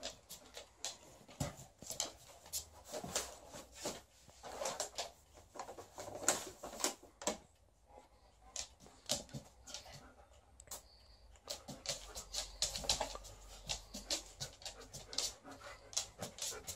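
Alaskan malamute panting and moving about, its claws ticking on the floor in quick, irregular clicks.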